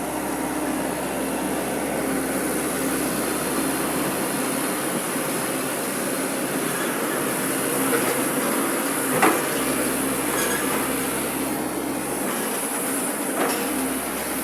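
Excavator running steadily while digging, with a few sharp knocks, the loudest a little past the middle.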